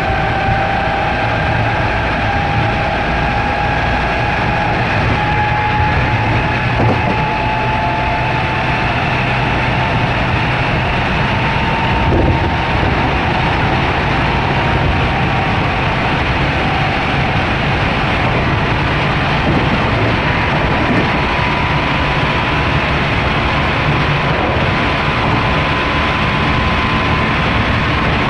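Onboard running sound of a JR West 207 series 1000-subseries train with Toshiba GTO-VVVF traction equipment, heard inside the motor car: a motor whine slowly rising in pitch over a steady rumble of wheels on rail, then holding level. This set is labelled an odd-sounding car.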